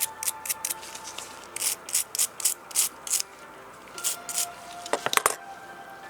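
Quick scratchy scrubbing strokes in short runs as corrosion is cleaned off a film camera's battery contacts, then a few sharp clicks about five seconds in.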